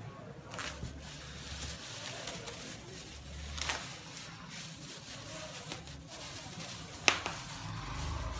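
Clear plastic bag rustling and crinkling as it is handled over a plastic basin, with a few louder crackles and a sharp snap about seven seconds in.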